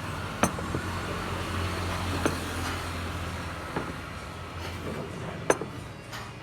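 Steady low rumble of a passing vehicle or road traffic, with four sharp clinks of utensils against bowls spread through it.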